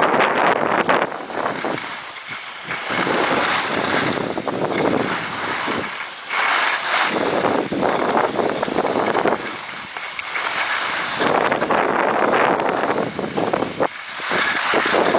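Wind buffeting the camera microphone together with the hiss and scrape of skis sliding over packed snow, swelling and dipping every few seconds.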